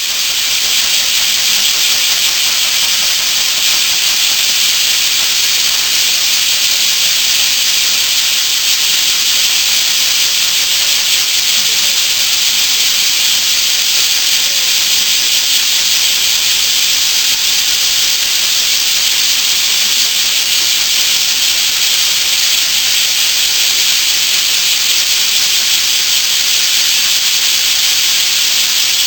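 A dense chorus of bear cicadas (kumazemi, Cryptotympana facialis) singing all together: a loud, steady, high buzz that never lets up.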